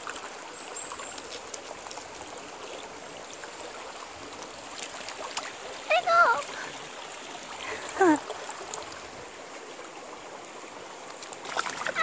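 Shallow mountain stream running over rocks, a steady trickling rush. Two short vocal sounds, each falling in pitch, cut in about six and eight seconds in.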